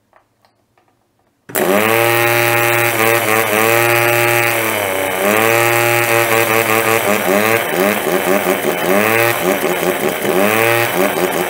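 Small 12 V air-horn compressor, a DC motor driving a rotary vane pump, starting suddenly about a second and a half in and running loud and rough like a moped or chainsaw. Its pitch keeps sagging and recovering, more often toward the end. The owner takes the uneven running for a pump that needs better cleaning and lubrication.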